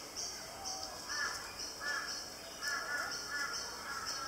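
Birds calling outdoors: a short high chirp repeating steadily about twice a second, with a few lower, harsher calls in the middle.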